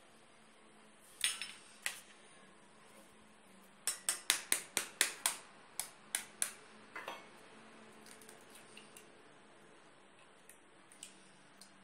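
Sharp clicks and knocks of eggs being cracked against a stainless steel mixing bowl: a quick run of about eight taps in the middle, with a few single knocks before and after and faint clicks of shell near the end.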